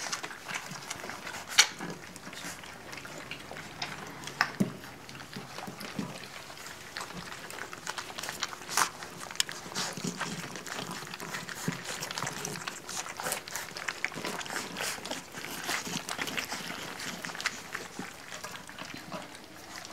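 Several puppies eating mushy food together from a stainless steel feeding pan: a continuous, busy run of wet lapping, chewing and smacking, with many sharp, irregular clicks.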